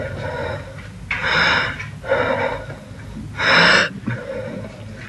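A young man gasping in ragged, breathy, near-sobbing breaths, about four sharp gasps with the loudest a little past the middle: the sound of panic and distress.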